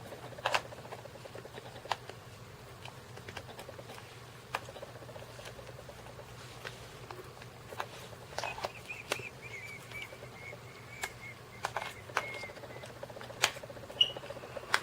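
Scattered sharp plastic clicks and taps from handling and fitting the thin plastic back cover of a Samsung Galaxy S Player 4.2, over a faint steady low hum.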